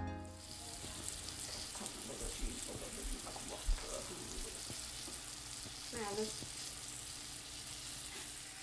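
Cornmeal-breaded squash slices frying in hot coconut oil in a cast iron skillet: a steady sizzle with scattered small pops, and one sharper pop about three and a half seconds in.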